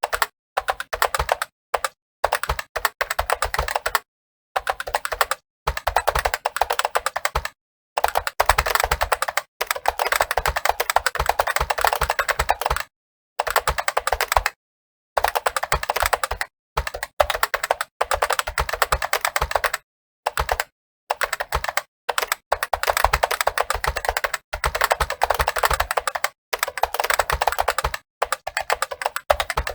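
Fast touch-typing on a computer keyboard: a rapid, continuous patter of key clicks in runs of a few seconds, broken by short pauses.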